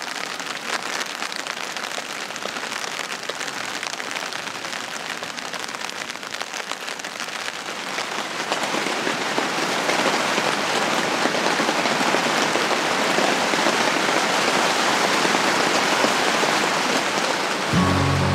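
Steady rain pattering on a camping shelter's fabric and mesh, growing heavier and louder about halfway through. Music comes in just before the end.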